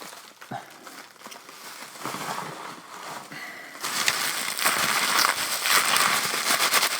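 Plastic packaging crinkling and crackling as it is pulled apart by hand. Soft rustles at first, then from about four seconds in a loud, continuous crackle full of sharp snaps.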